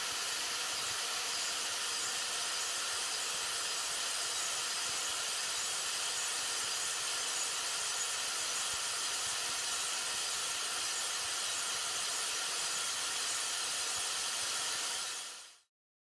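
Metabo straight grinder running with its stone wheel grinding the inside of a motorcycle cylinder bore as the cylinder turns in a lathe: a steady hiss of grinding with a faint motor whine. It fades out near the end.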